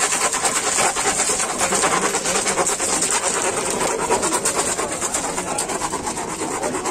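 A wooden hand churner spun fast back and forth between the palms in a steel mug of water and ice, making a steady rapid rubbing rattle.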